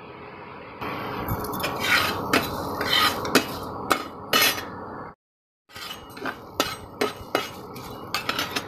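Steel spatula scraping and clinking against a metal kadai in quick, irregular strokes, stirring whole spices (bay leaves, fennel, cumin, black pepper) as they dry-roast without oil on a medium flame. The sound cuts out briefly about five seconds in.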